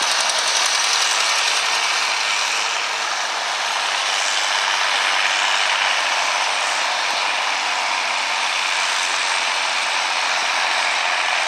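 Oliver Super 99 tractor's 3-71 Detroit two-stroke diesel running hard and steady while pulling the sled.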